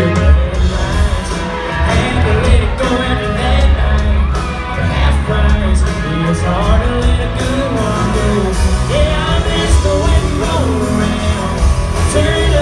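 Live country band playing, with a man singing over acoustic guitars, bass and drums, heard from within the crowd in a large hall. The heavy bass and drums come in right at the start.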